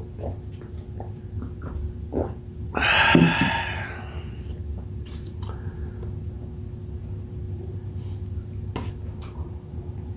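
Small clicks and handling noises of food and tableware at a meal being set to, with one louder rustling, scraping burst lasting about a second, about three seconds in, over a steady low hum.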